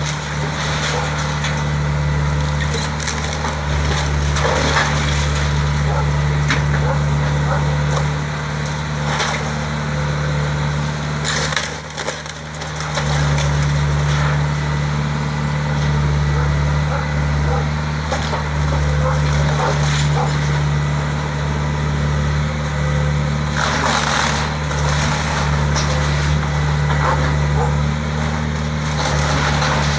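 John Deere hydraulic excavator's diesel engine running steadily while its bucket tears apart a wood-frame house: wood splintering and cracking, with repeated crashes of breaking boards and falling debris. The engine hum fades briefly about halfway through.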